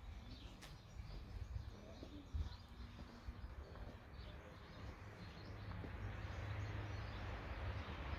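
Quiet outdoor ambience: scattered faint bird chirps over a low fluttering rumble, with a broad noise growing louder over the last few seconds.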